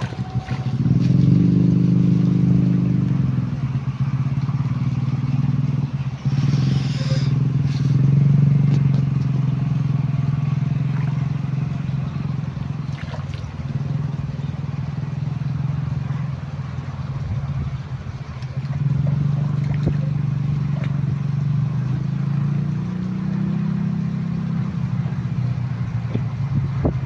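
Small engine running steadily, its level and pitch rising and falling slightly a few times.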